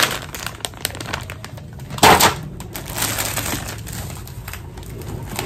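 Plastic food packaging crinkling and crackling as it is handled, in scattered short clicks, with a louder crackle about two seconds in.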